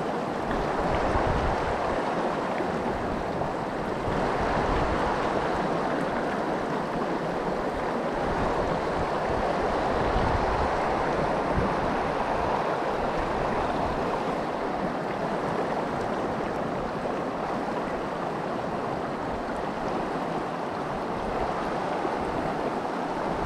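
Mountain stream water rushing steadily, with gusts of wind rumbling on the microphone now and then.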